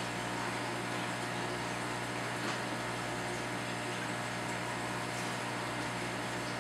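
Steady low electrical hum over a constant hiss, typical of the pumps and filtration running on a stingray holding tank.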